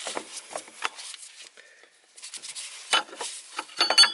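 Metal battery hold-down plate scraping and knocking against the battery tray and hardware as it is worked into position by hand, a run of irregular scrapes and clicks. Near the end comes a sharper metallic clatter as the plate slips out of place.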